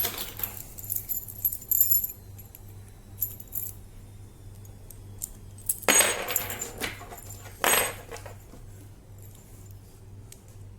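Metal parts of a disassembled padlock, its core and actuator, clinking and rattling as they are handled: scattered clinks in the first two seconds, then two longer scrapes of metal sliding on metal about six and eight seconds in.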